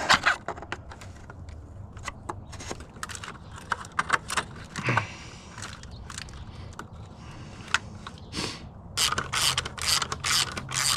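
A screwdriver prying at plastic retaining clips under an engine cover: scattered clicks, scrapes and rattles, busiest near the end.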